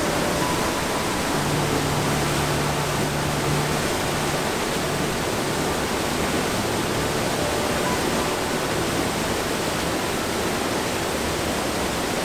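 Waterfall on a mountain creek, whitewater pouring over rock ledges close by: a steady, unbroken rushing of water.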